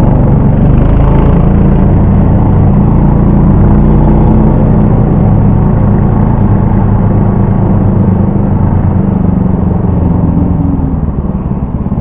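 Lider 3 motorized snow tow's engine running steadily under load as it travels across the snow, easing off slightly near the end.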